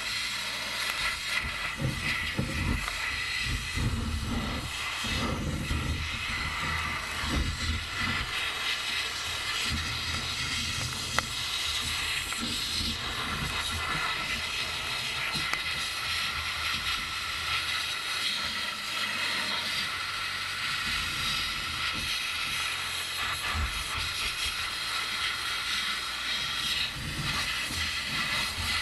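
Media blaster's nozzle hissing steadily as the abrasive-laden air jet strips a steel bracket, with irregular low rumbles over the first several seconds and one sharp tick about eleven seconds in.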